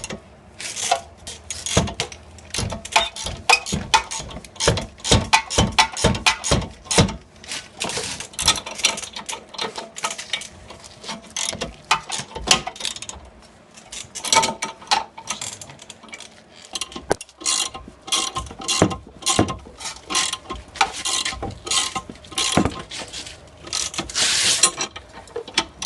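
Ratchet wrench clicking through repeated strokes as it turns the screw of a ball joint separator, pressing the worn lower control arm ball joint out of the steering knuckle.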